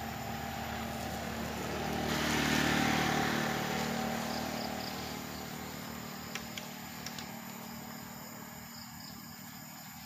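A motor vehicle passing by: its engine and road noise swell to a peak about three seconds in and fade away, over a steady low engine hum.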